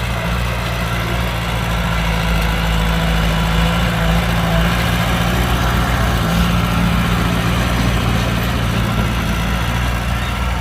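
Heavy diesel engine of construction machinery running steadily at an even pitch.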